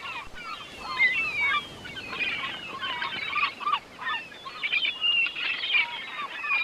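A flock of birds calling, many short chattering and squawking calls overlapping without a break.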